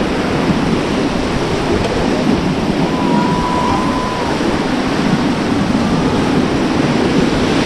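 Rushing whitewater of a river rapid churning around an inflatable raft, a loud, steady wash of water noise.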